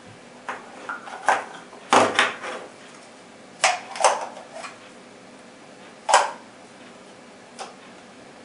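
Handling noise of a rifle scope being turned over in the hands: about eight irregular clicks and knocks, the loudest about two seconds in and just after six seconds.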